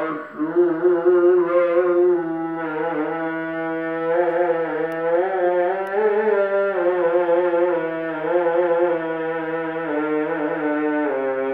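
Music: a melody of long held notes that waver slightly in pitch, over a steady low drone.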